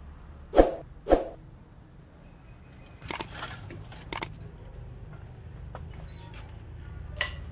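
Two short loud calls about half a second apart near the start. A bicycle rolls along with a few light clicks and rattles, then gives a short high-pitched squeal about six seconds in as it is braked to a stop.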